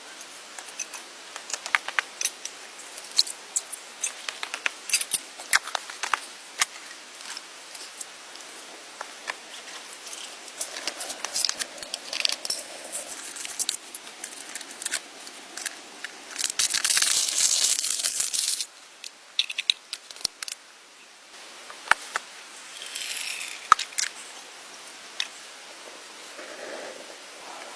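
Irregular crackles, snaps and rustling of hand work with natural materials, with a loud hissing rustle lasting about two seconds past the middle.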